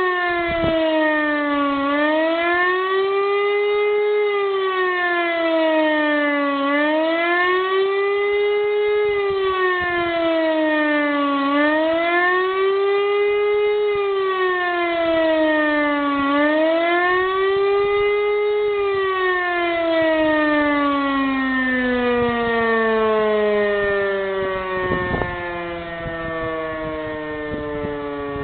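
E57 motor siren sounding the 'Warnung' warning signal: a wailing tone that rises and falls about every five seconds. About nineteen seconds in the wail stops and the pitch slides steadily down as the siren winds down.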